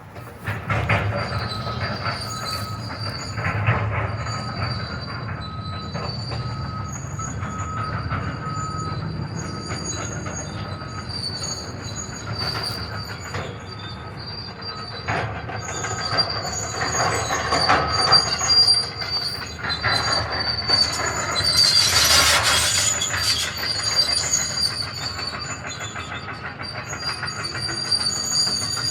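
Demolition machinery working, with steady high-pitched metal squealing, a low rumble and scattered knocks, and a louder noisy crash of debris about 22 seconds in.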